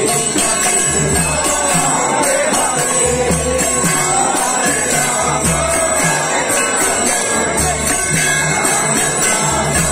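A crowd chanting a kirtan together, with brass hand cymbals (kartals) ringing steadily on the beat. A low beat pulses evenly underneath.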